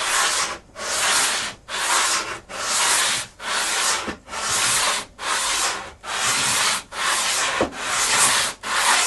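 Hand sanding bar with 180-grit paper block-sanding a wooden-veneered model glider wing: about eleven even strokes, a little more than one a second, each a scratchy hiss with a short break between. The strokes run diagonally at 45 degrees in a cross-hatch pattern, a fine finishing pass to take out waviness in the veneer.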